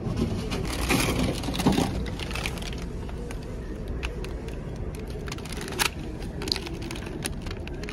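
Plastic food packaging crinkling and crackling as it is handled, in irregular bursts that are thickest in the first two seconds, over a steady low rumble.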